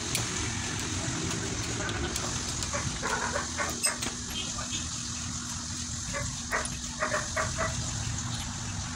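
A dog barking in two short runs, about three seconds in and again around six to seven seconds in, over a steady low hum.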